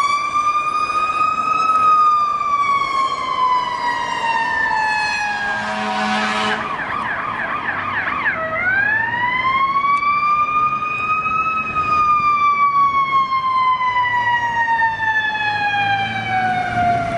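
Emergency vehicle's electronic siren on a slow wail, rising and falling in long sweeps. About six seconds in it briefly changes to a fast wavering tone with a low steady note under it, then the slow wail picks up again.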